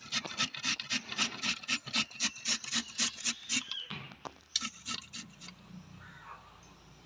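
A raw potato being grated on a stainless steel box grater: quick rhythmic rasping strokes, about four a second, that stop about five and a half seconds in.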